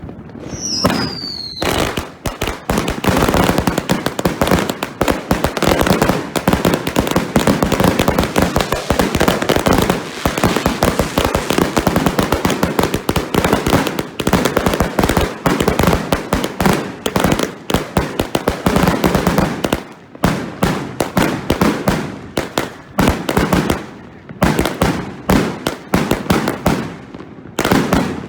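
Two 100-shot salute cakes, Sound Check and Dreamkeeper, fired side by side: a dense, rapid barrage of loud salute bangs with brief lulls around two-thirds of the way through. A short falling whistle comes just before the barrage starts.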